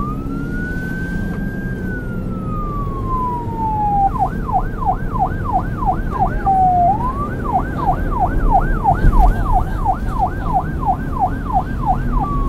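Police siren: a slow wail that falls in pitch, then a fast yelp of about three to four sweeps a second, a brief wail about halfway through, the fast yelp again, and the slow wail returning near the end, over a low street rumble.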